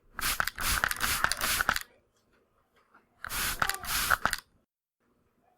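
An atomizer sprays twice: two bursts of hissing spray, the first about a second and a half long and the second about a second long, each broken by several quick clicks.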